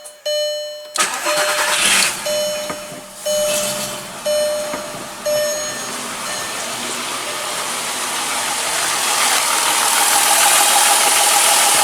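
2003 VW Jetta 2.8 VR6 engine cranking and starting about a second in, then running and growing louder toward the end, still misfiring with a new coil pack on cylinder 2. The car's warning chime dings about once a second for the first five seconds.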